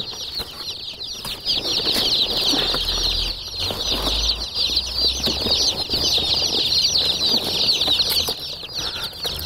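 A crowd of about a hundred day-old Freedom Ranger meat chicks peeping nonstop inside ventilated cardboard shipping boxes, many high, short chirps overlapping into one continuous chorus.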